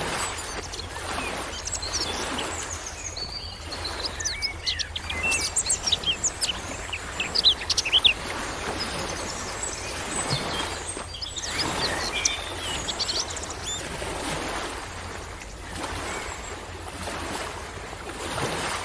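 Waves washing in and drawing back in slow swells, with birds chirping. A burst of quick high chirps about four to eight seconds in is the loudest part.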